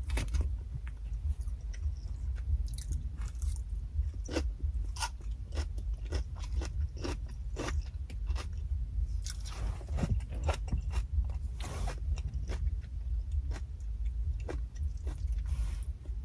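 A person chewing and biting food close to the microphone: short, irregular mouth clicks and crunches over a steady low rumble.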